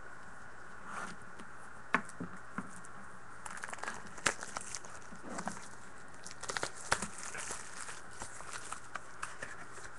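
Trading-card packaging being handled and opened: crinkling and tearing, with a few sharp clicks, densest in the middle.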